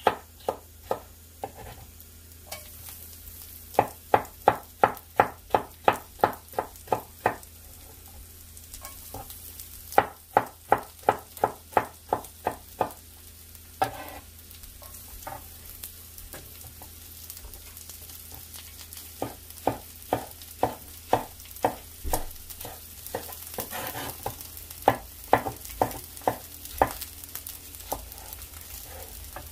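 Chef's knife slicing celery on a wooden cutting board in several runs of quick, even strokes, about three a second, over a faint steady sizzle of carrots frying in oil in a pan.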